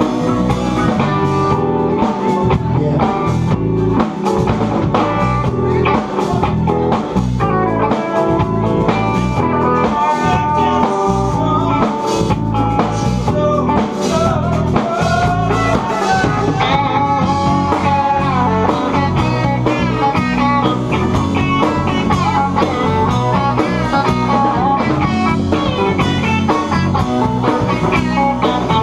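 A live blues-rock band playing loudly: guitars over a drum kit, with bending guitar lines.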